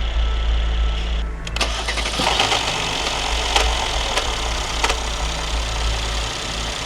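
Mercedes-Benz W222 S400 engine starting from cold after long parking, with a brief rattle from inside the engine. The car logs a bank-1 intake camshaft position fault, which could be timing misalignment, a failed cam adjuster or a faulty sensor.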